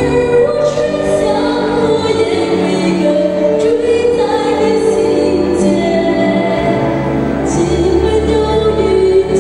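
A young girl singing a Mandarin song into a microphone over instrumental accompaniment, in long held notes.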